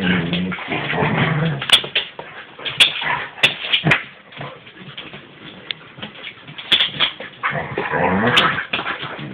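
Alaskan husky and Alaskan malamute play-fighting: low growling whines at the start and again near the end, with sharp clicks and scuffles of paws on a wooden floor, quieter in the middle.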